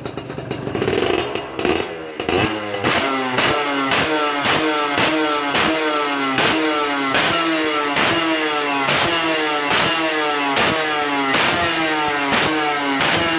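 Two-stroke motorcycle engine revved through a YY Pang aftermarket exhaust in quick repeated throttle blips, about two a second, each rev falling away before the next.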